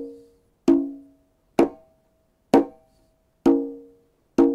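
Hand drum strokes on a conga, about one a second, in pairs: two ringing open tones, then two short, sharp closed slaps, then two open tones again.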